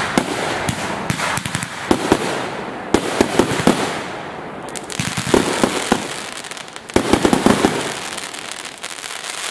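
Fireworks going off: clusters of sharp bangs and pops with crackling between them, a new volley every second or two, thinning out near the end.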